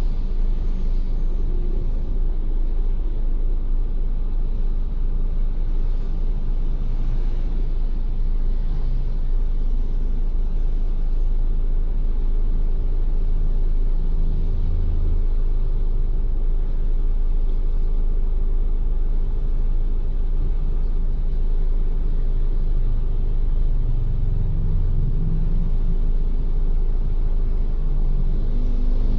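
Ford Everest SUV on the move: a steady low rumble of engine and road noise, with a few brief low swells.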